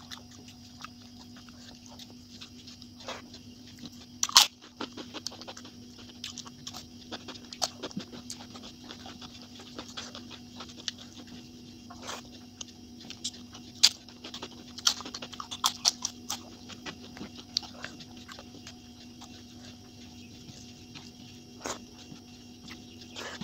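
Eating sounds sped up to three times speed: quick, irregular clicks and crunches of chewing and of fingers mixing rice on a steel plate, the loudest click about four seconds in. A steady low hum runs beneath.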